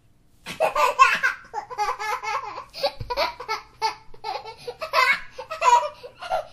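A baby laughing hard: a long run of short, high-pitched laughs and squeals, one after another with barely a breath between them, starting about half a second in.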